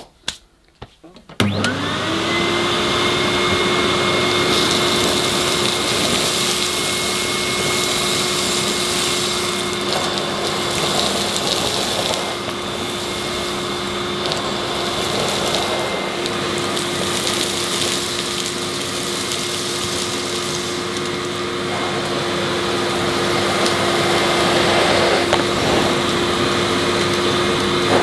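Miele S228i cylinder vacuum cleaner switched on about a second and a half in, its motor winding up in pitch and settling into a steady whine. It runs on while the floor head is pushed over plush carpet, sucking up scattered oats, sand and fluff.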